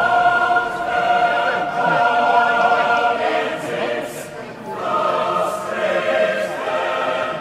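Choir singing long held notes as background music, changing to a new chord about halfway through.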